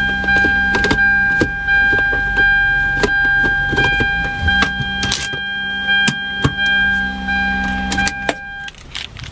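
Hyundai Sonata's automatic gear selector being moved through its positions, with many sharp clicks, over the engine idling. A steady electronic warning tone from the car runs under it and stops shortly before the end.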